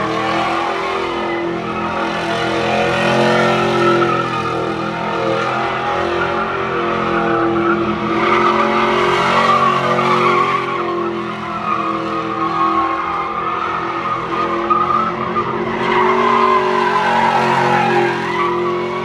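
Pickup truck doing donuts: its engine held at high revs, the pitch wavering up and down, over the squeal of its spinning rear tyres.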